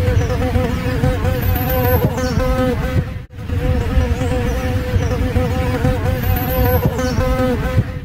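A swarm of honeybees buzzing: a loud, steady drone whose pitch wavers slightly, with a brief break about three seconds in.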